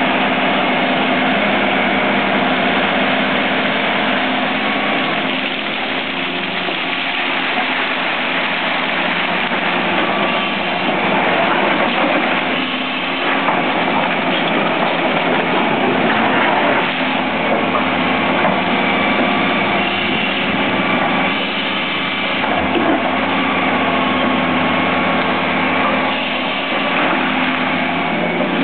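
Fiat-Hitachi EX285 excavator's diesel engine running steadily at close range while the machine swings and works its boom and bucket, the engine note dipping slightly now and then under the hydraulic load.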